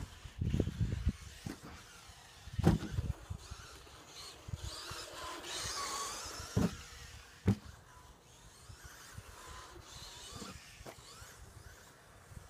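Team Associated B5M 2WD electric RC buggy running on a plastic-tile track: its motor and drivetrain whine rises and falls as it passes close. A few sharp knocks come from the car striking the surface.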